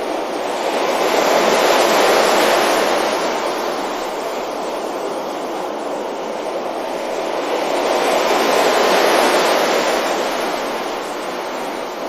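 Sea waves breaking and washing up a beach: a steady rush of surf that swells twice, once about two seconds in and again about nine seconds in, easing off between.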